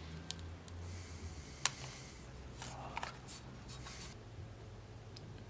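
Faint rustling and light clicks of paper and tape being handled and pressed onto a steel machete blade, over a low steady hum.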